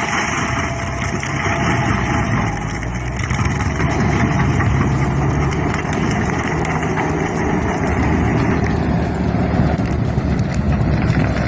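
Engine of a heavy land-clearing machine with an RT400 rotary drum attachment running steadily, with a dense churning noise over the engine hum.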